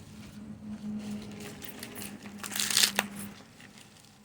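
Husk leaves being pulled back and torn off an ear of sweet corn: a dry, irregular crinkling and tearing, loudest between about two and a half and three seconds in.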